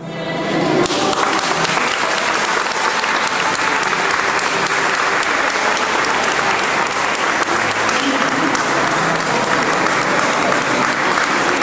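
A crowd of people applauding steadily, a dense continuous clatter of hand claps.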